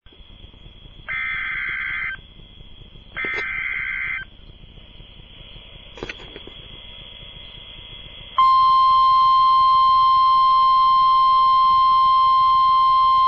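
NOAA Weather Radio Emergency Alert System tones for a tornado warning: two one-second bursts of warbling SAME header data about a second apart, then about eight seconds in the loud, steady 1050 Hz warning alarm tone starts and holds.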